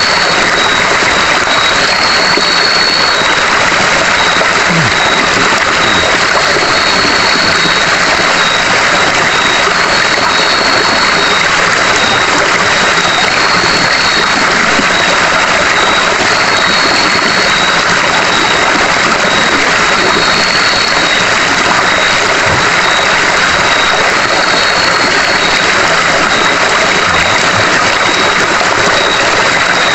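A steady, loud rushing drone, with night insects trilling on one high note and a second insect call of about a second repeating roughly every three and a half seconds.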